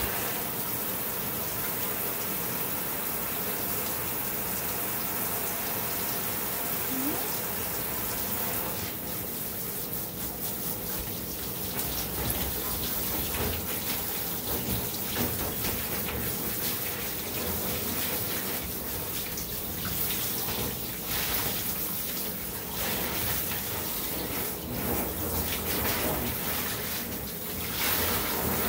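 Handheld shower sprayer running steadily in a bathtub, the spray hitting a wet puppy's coat and splashing into the tub. The sound turns more uneven and splashy about nine seconds in.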